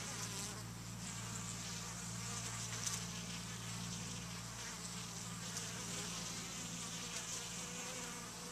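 Italian honeybees buzzing at the hive entrance as foragers fly in and out, a steady low hum.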